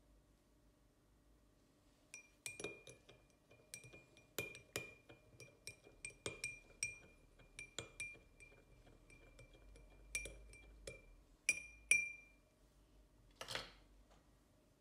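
Metal teaspoon stirring tea in a drinking glass, clinking against the glass sides two or three times a second, each clink leaving a short high ring; the honey is being stirred in. The clinks stop about twelve seconds in, followed by a brief scraping rustle.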